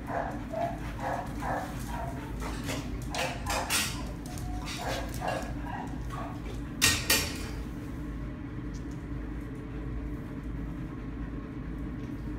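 Dogs at play giving short, repeated yips and whines, several a second, for about the first five seconds. Two sharp knocks come about seven seconds in, and a steady low hum runs underneath.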